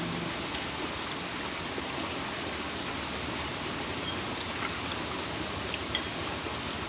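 Steady rushing background noise, with a few faint clicks of eating and a spoon in a bowl in the second half.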